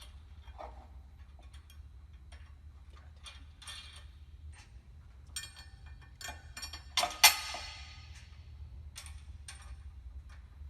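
Steel bracket and bolts being fitted by hand: scattered light metallic clicks and clinks as the bracket is held against the row unit and M10 bolts and flange nuts are started, with one sharp metal clank about seven seconds in.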